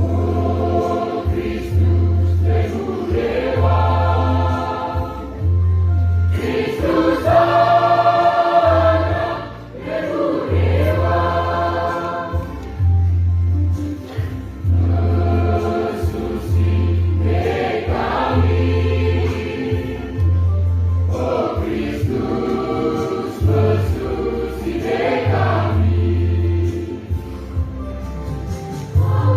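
Choir singing in harmony, over a low bass accompaniment that sounds in regular pulses.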